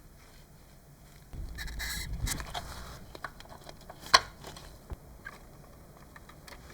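Small parts and tools being handled: a low rumbling scuff for about a second and a half, then one sharp click about four seconds in, with a few fainter clicks around it.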